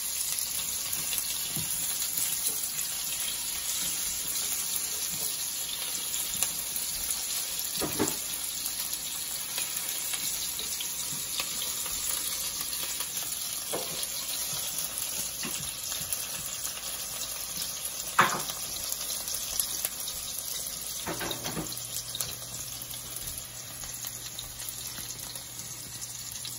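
Chopped onions sizzling in hot annatto oil in a nonstick frying pan as they sauté, stirred with a silicone spatula. A steady hiss with a few light knocks of the spatula against the pan, the sharpest a little past the middle.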